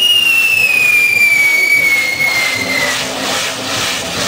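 Spinning firework wheel whistling, the whistle sliding slowly down in pitch. About three seconds in the whistle stops and a hiss of burning powder with crackles carries on.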